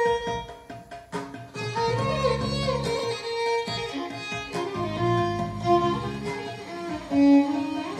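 Violin playing a slow melody with sliding notes over a soft instrumental backing.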